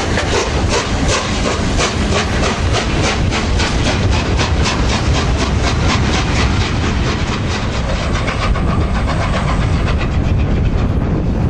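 Three-cylinder A1 Peppercorn Pacific steam locomotive 60163 Tornado pulling away with a train of coaches: steady exhaust chuffs about four a second over the rumble of the coaches rolling past. The beats fade about eight seconds in as the train draws away, leaving a low rumble.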